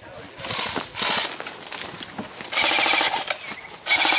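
Airsoft electric rifles firing several full-auto bursts of rapid, evenly repeating shots, the longest and loudest about two and a half seconds in and again near the end.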